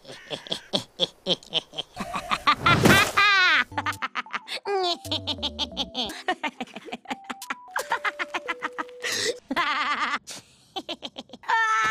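Cartoon characters' laughter, chiefly a high, nasal female voice, in a rapid string of short clips cut back to back: giggles, snickers and cackles that start and stop abruptly, with a few held tones between them.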